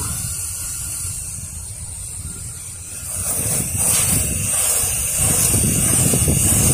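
Soft-wash spray hissing from an M5 nozzle, growing louder about three seconds in, over a low rumble of wind on the microphone.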